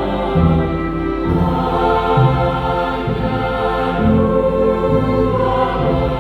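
Mixed choir singing a medley of Christmas carols, many voices holding sustained chords over a moving low line.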